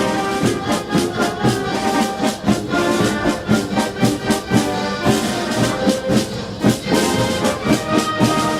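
Brass band playing, with trombones and trumpets over a steady drum beat.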